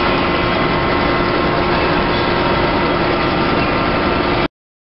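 Edge pre-folding and stitching machine for big-bag fabric running steadily: a constant mechanical hum with a few steady tones. It cuts off suddenly about four and a half seconds in.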